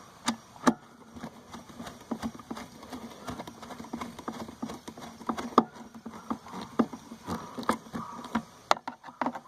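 Phillips screwdriver tightening the small screws that hold a mass airflow sensor in a cold air intake tube: irregular clicks and taps of the driver and parts being handled.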